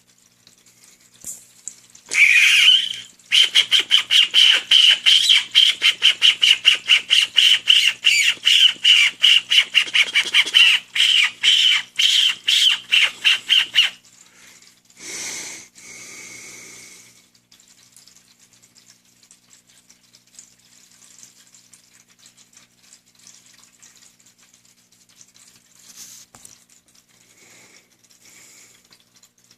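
Pet cockatiels calling: a loud opening call, then a fast run of sharp, repeated chirps, about four a second, lasting roughly ten seconds, with one more short burst a little later.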